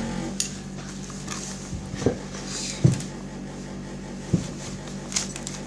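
Handling noise from slime-making: five scattered short knocks and clicks over a steady low hum.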